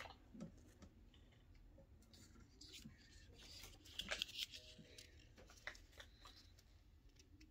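Faint rustling and light clicks of a paper checklist being handled, a little louder about four seconds in.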